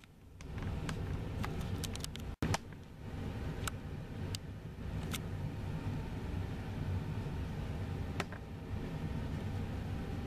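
Steady low rumble of jet airliner engines, with a few faint clicks. The sound drops out for a moment about two and a half seconds in.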